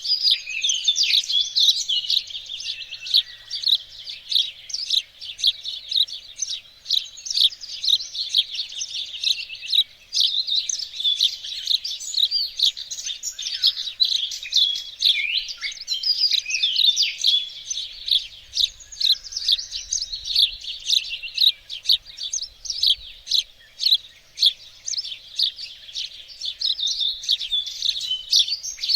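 Many small songbirds chirping and singing at once, a dense, unbroken chorus of quick high chirps and trills.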